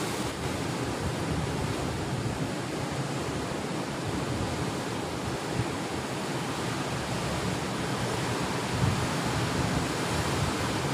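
Sea surf breaking and washing against a rocky shore: a steady rush of waves.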